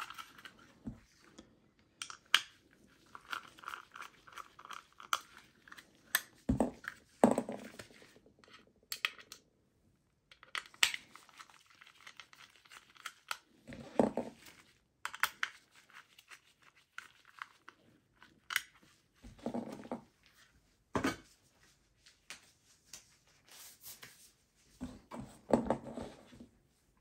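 Irregular clicks, knocks and scraping of gloved hands and a screwdriver handling parts inside a desktop PC case while the 2.5-inch SSD and its SATA cable are taken out, with a few sharp knocks standing out among softer rustling.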